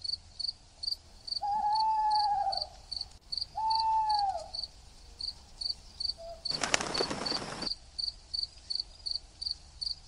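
Steady chirping of insects, about three even chirps a second. Over it come two loud, drawn-out calls in the first half, each about a second long, rising then falling in pitch. Near the middle there is a sudden burst of hiss lasting about a second.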